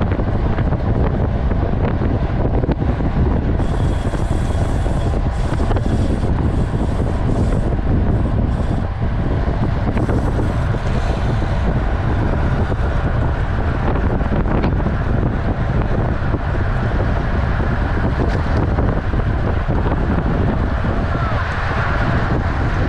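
Wind rumbling steadily over a bicycle-mounted camera's microphone at racing speed, around 40 km/h. A thinner, higher hiss comes and goes through the first half.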